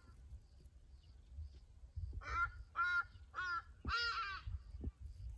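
An animal calling four times in quick succession, each call a short pitched note about 0.6 s after the last, starting about two seconds in.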